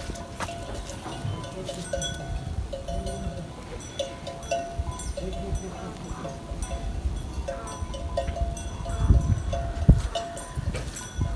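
Bells on a flock of livestock clanking irregularly as the animals move, with low thumps of wind or handling on the microphone about nine seconds in.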